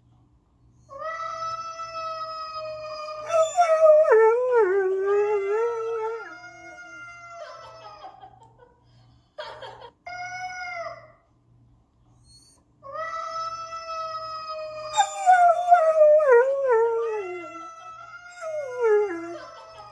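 Cat yowling, played back from a video: two long, drawn-out yells, each held at a steady pitch for about two seconds before wavering and sliding downward, with two short cries between them.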